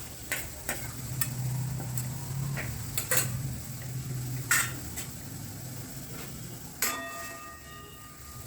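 A cooking utensil clinking and scraping against a pot during stirring: a string of irregular clicks, with one sharper strike near the end that rings briefly.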